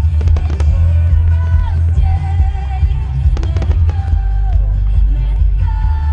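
Aerial fireworks bursting, with deep booms and sharp crackling strikes about half a second in and again past the middle, over loud music with a wavering melody line.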